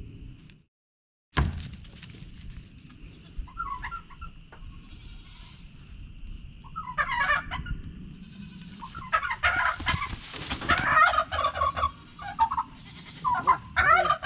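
Turkey gobbling in rapid rattling calls, repeated several times and coming more often toward the end, over a low steady rumble. The sound cuts out briefly about a second in.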